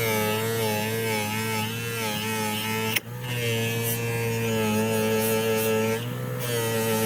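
Small electric motor running steadily with a buzzing hum whose pitch wavers slightly, broken by a click and a brief drop about three seconds in.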